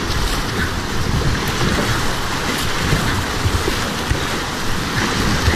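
Rushing whitewater of a river at high flow, with kayak paddle blades splashing in with each stroke and wind buffeting the microphone.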